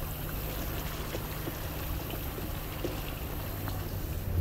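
Water sloshing and trickling around the tyres of a 2022 Nissan Frontier as it drives through a shallow creek, heard from inside the cab over the truck's steady low engine rumble.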